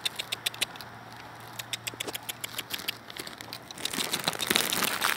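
Quick, irregular crinkling and clicking handling noise while walking, swelling into a louder rushing rustle over the last second or so.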